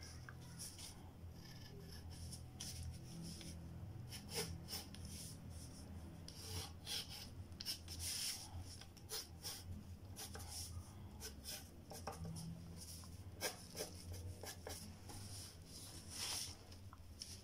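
Wooden pencil scratching on paper in short, irregular strokes as a drawing is sketched. A faint steady low hum runs underneath.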